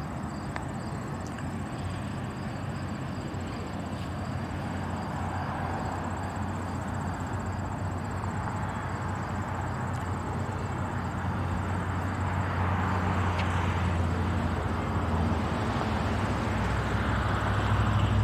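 A vehicle engine's steady low hum with a rushing noise, growing slowly louder toward the end.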